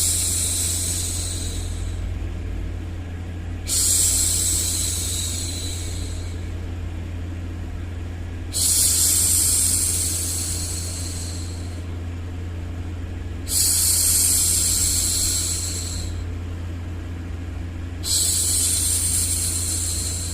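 A woman's hushing 'shhh' for soothing a baby, repeated about every four to five seconds, each hush starting suddenly and fading over about two seconds. Under it runs a steady low rumble of noise.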